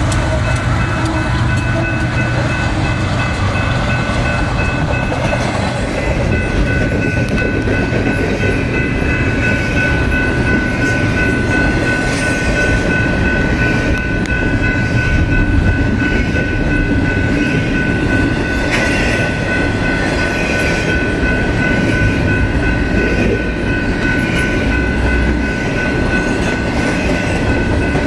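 Double-stack intermodal train passing close by: the trailing GE diesel locomotives go past in the first seconds, then container well cars roll by with a steady rumble and the clatter of wheels over rail joints. A steady high-pitched tone carries through from about six seconds in.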